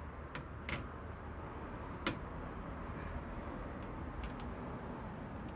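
A few sharp metallic clicks and taps of bolts and tools being handled while refitting the sliding door handle's bolts, over a steady low background rumble.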